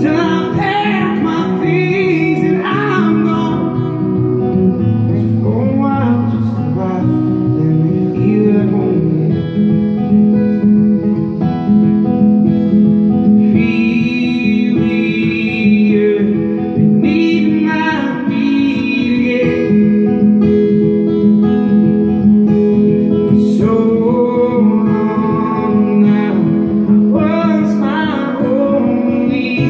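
A man singing a slow song to his own strummed acoustic guitar, played live into a microphone.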